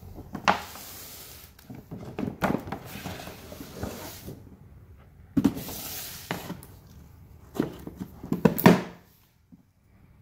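Stiff paper shopping bag rustling in several bursts as a cardboard shoe box is pulled out of it, then a few knocks as the box is set down on a hard tiled floor, after which it goes quiet.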